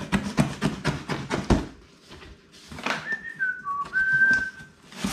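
Cardboard box flaps and cut packing tape being pulled open by hand, a quick run of crackles and scrapes in the first second and a half. Then, about three seconds in, a man whistles four short notes, falling and then rising again, the last one held for about a second.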